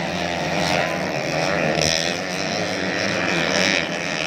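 Several motocross bikes' engines running and revving at once, their pitch wavering up and down unevenly.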